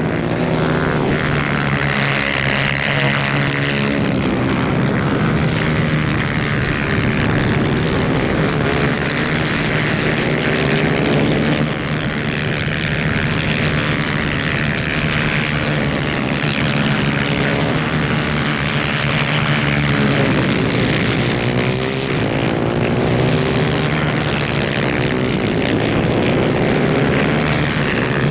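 Several 250cc racing kart engines running hard at high revs. Their pitch keeps rising and falling as the karts accelerate, brake and pass, with no break in the sound.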